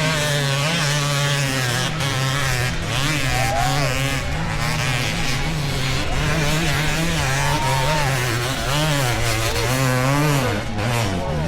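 Several dirt bike engines revving, their pitch rising and falling over and over, over a steady low engine drone.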